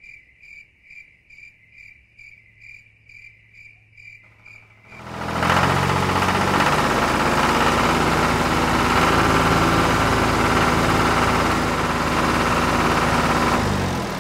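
Crickets chirping faintly, about two chirps a second. About five seconds in a motor starts up and runs steadily and much louder, a low rough hum with a hiss over it, stopping just before the end.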